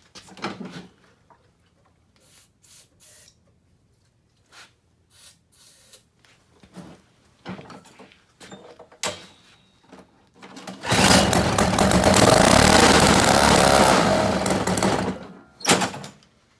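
Toro CCR1000 snowblower's small Tecumseh two-stroke engine fires about eleven seconds in, runs steadily for about four seconds, then dies, which points to a fuel-supply problem. Before it starts there are scattered clicks and knocks, and a short loud sound follows shortly after it stops.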